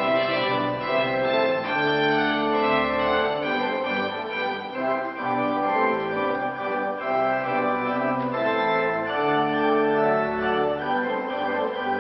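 Organ playing full chords with a melody line over sustained bass notes, the notes held and changing in a steady tempo.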